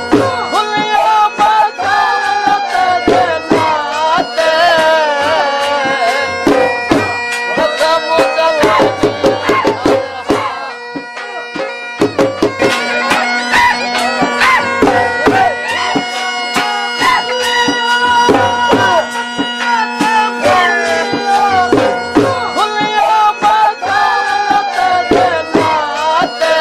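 Traditional folk music: a steady drone under a wavering melody, with hand-drum beats throughout. It thins briefly about eleven seconds in.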